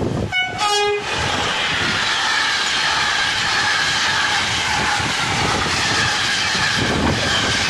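SNCF BB 75000 diesel-electric locomotive sounds a brief two-note horn, high then lower, about half a second in. Its train of loaded grain hopper wagons then rolls steadily past close by, wheels clattering over the rail joints with a faint steady squeal.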